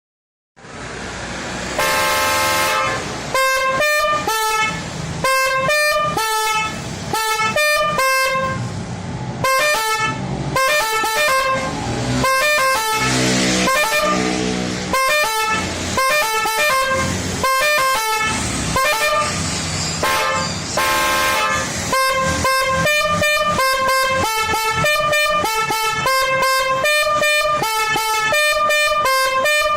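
Telolet bus horn, a set of three electric horns tuned to 400, 500 and 600 Hz and sounded from an eight-button controller, playing through its preset tune patterns. It opens with a held chord, goes on in short blasts with gaps between them, and from about two-thirds of the way in plays quick toots several times a second.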